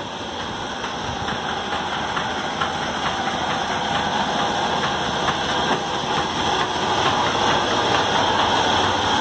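Flour mill (chakki) running with a steady mechanical drone that grows gradually louder.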